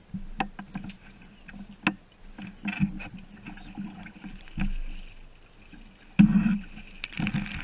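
Scattered clicks and knocks of a fishing reel and tackle on a bass boat while a fish is played on a bent rod, over a low steady hum. A heavy thump about six seconds in, then a short rush of noise near the end.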